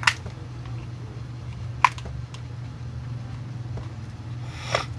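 Two sharp clicks, one just after the start and one about two seconds in, and a brief scrape near the end, as a screwdriver and hands work on the plastic cab of an RC dump truck. A steady low hum runs underneath.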